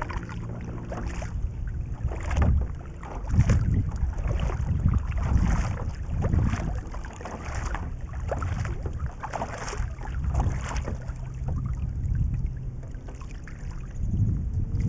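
Double-bladed paddle strokes from a Huki S1-A surfski, about one a second on alternating sides, each blade catching the water with a short splash over a steady low rumble.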